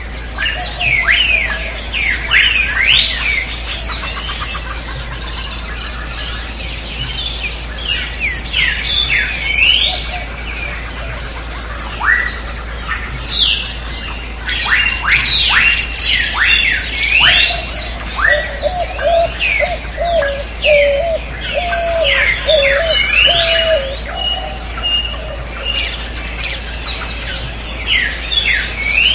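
Jungle ambience: many birds chirping and calling over one another in quick rising and falling whistles. A warbling lower call joins from the middle of the stretch. A steady low hum runs underneath.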